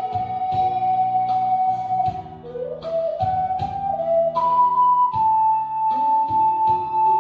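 A solo wind instrument with a flute-like tone plays a slow ballad melody over a backing track with a steady beat and bass. It holds long notes, climbs in a short run of notes about two and a half seconds in, then steps up to a higher note that it holds for the last few seconds.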